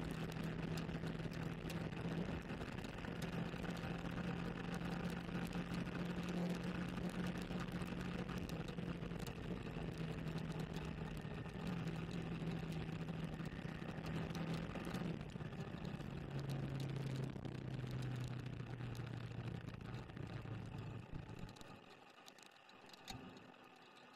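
Sport motorcycle engine running at a steady road speed, heard along with wind and road noise on a wet road. About two-thirds of the way through, the engine note drops lower as the bike slows. Near the end the sound falls away sharply.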